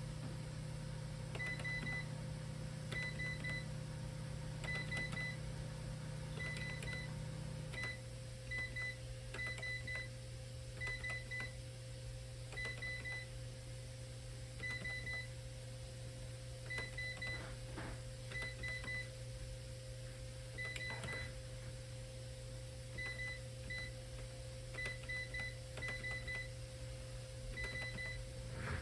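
SAM4s ER-915 cash register keypad beeping at each key press: short high beeps, mostly in quick pairs and short runs, as character codes are keyed in one after another.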